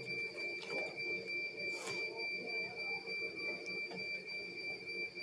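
A steady high-pitched electronic tone over a low steady hum, with a brief rustle about two seconds in.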